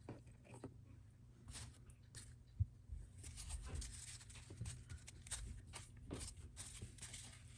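Faint handling of trading cards: soft scrapes and light clicks of cards being slid and flipped through a stack, over a low steady hum.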